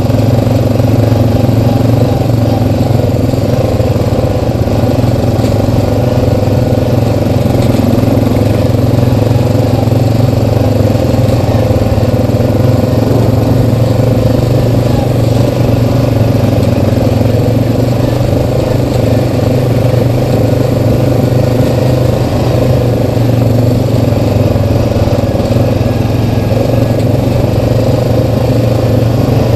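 Single-cylinder ATV engine running steadily under way on a dirt trail, a continuous loud drone that holds an even pitch with no let-up.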